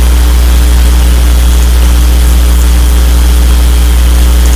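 Loud, steady electrical hum with a low fundamental and a row of evenly spaced overtones, unchanging throughout.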